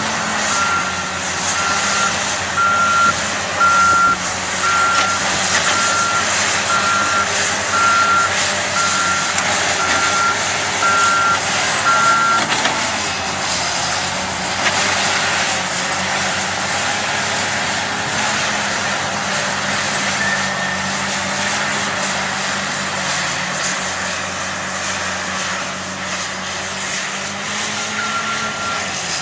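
Backup alarm on a reversing heavy machine, beeping steadily at about one and a half beeps a second over a running diesel engine. The beeping stops about twelve seconds in and starts again near the end, while the engine keeps running.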